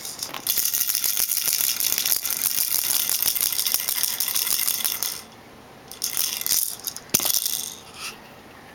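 A rattle shaken hard and fast for about five seconds, then shaken again in two short bursts near the end.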